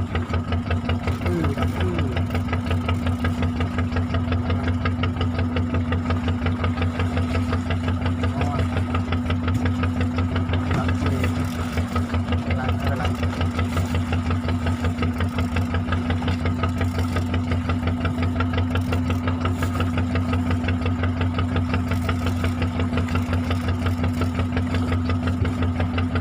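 Fishing boat's engine running steadily, with a fast, even chugging beat.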